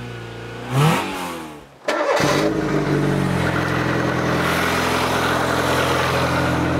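A short rising rev-like sound over the opening ident, then about two seconds in the Rover 200's four-cylinder engine fires, swoops briefly in pitch and settles into a steady idle. The car is starting and running again after a spell of refusing to start, now cured by a new fuel pump and cleaned earth connections.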